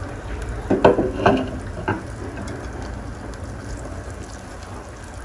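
Breaded baby corn deep-frying in hot oil, a steady sizzle. About a second in come three short louder sounds.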